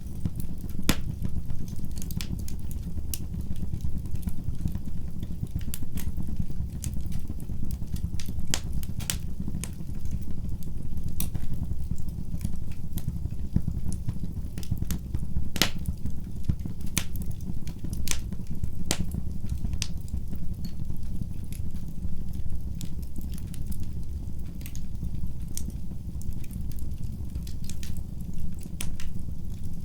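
Fire burning in a fireplace: a steady low rumble of flame with irregular sharp crackles and pops throughout, a few of them louder snaps.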